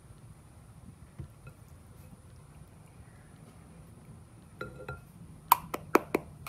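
A spatula clinking against a glass jar and stoneware mixing bowl while thick abrasive paste is scooped: a short scrape, then four quick sharp clicks near the end.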